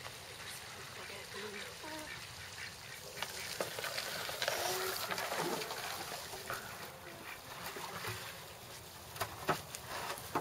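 A few short animal calls over a steady background hiss, with two sharp knocks about nine seconds in.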